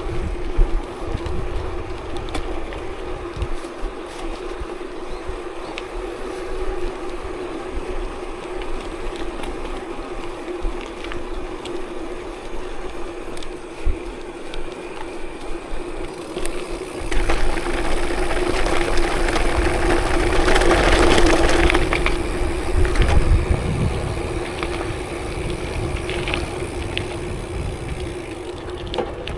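Riding noise from a vehicle moving along an unpaved forest road, with a steady hum throughout and a louder rushing, rattling noise swelling up from about halfway through before easing off again.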